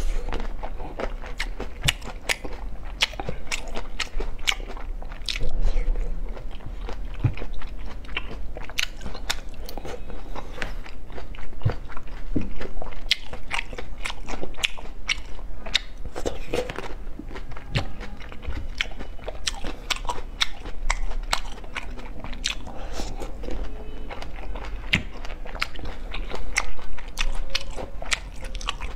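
Close-miked mouth sounds of a person biting and chewing food, with many sharp crunching clicks, several a second, throughout.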